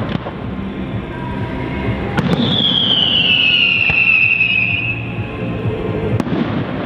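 Fireworks display: several sharp bangs of bursting shells, and from about two seconds in a long whistle that slowly falls in pitch.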